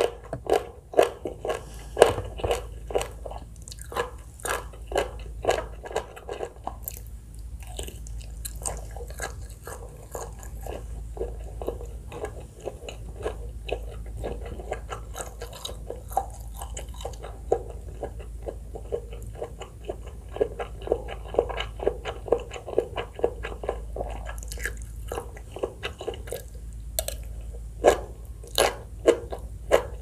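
Close-miked chewing of a mouthful of green papaya salad, noodles and sausage: a run of wet, crunchy chews, about two to three a second, louder at the start and again near the end.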